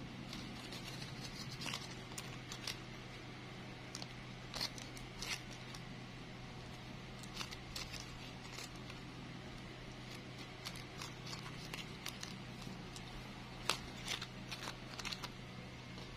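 Scattered faint crinkles and crackles of thin plastic-bag petals being handled and pressed into shape by hand, over a steady low hum.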